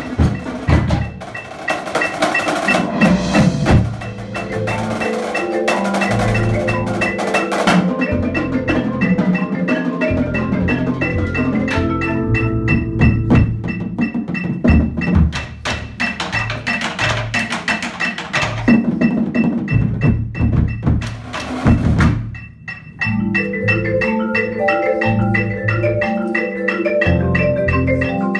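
Percussion ensemble playing a piece: marimbas and xylophones over marching bass drums and a drum kit. The music dips briefly about three-quarters of the way through, then comes back in.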